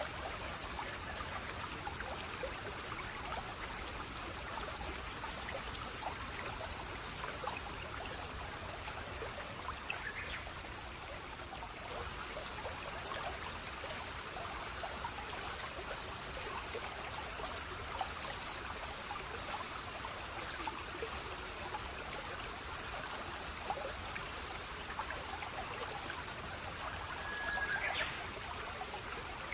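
Stream water running and trickling steadily. A few faint bird chirps sound over it, the clearest near the end.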